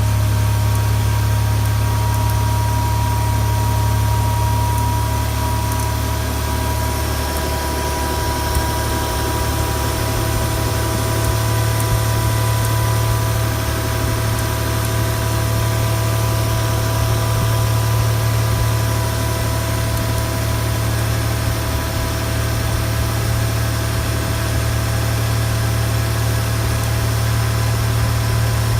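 Nissan VG30DET 3.0-litre turbocharged V6 running steadily at idle, with a thin steady whine over the engine's hum. This is a suspected abnormal noise whose cause the owner does not know.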